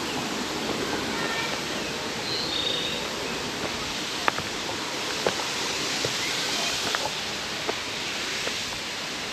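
Steady rush of the Fogelsville Dam waterfall, with a few sharp ticks about once a second in the second half.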